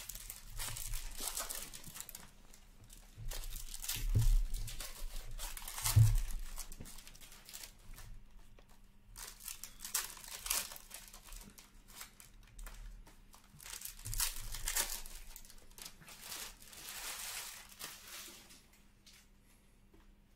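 Foil wrappers of 2022-23 Upper Deck Ice hockey card packs being torn open and crinkled while cards are handled, in several separate bursts of crackling. Two louder knocks come about four and six seconds in.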